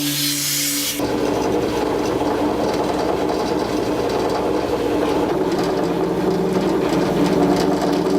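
Power tool grinding and sanding down the edge of an LED bulb and its plastic socket so the bulb will fit, a steady rasping grind that starts about a second in.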